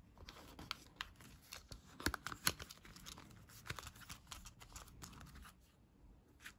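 Rigid plastic iPhone case, a SUPCASE Unicorn Beetle rugged case, being handled and fitted onto a dummy phone, with a clear plastic film crinkling: a quiet run of plastic crackles and clicks, loudest about two seconds in, thinning out near the end.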